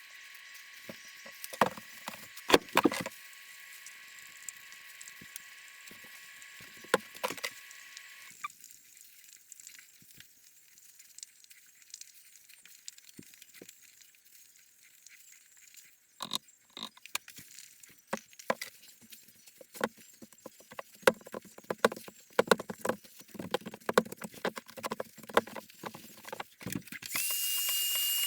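Scattered clicks and knocks of wood and tools being handled, with a faint steady whine in the first third. About a second before the end a loud steady hiss with a high whine starts.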